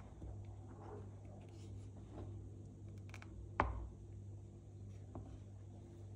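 Wooden spoon stirring a thick, simmering jam mixture in a pot: soft wet squishing and small clicks, with one sharp knock of the spoon against the pot a little past halfway, over a steady low hum.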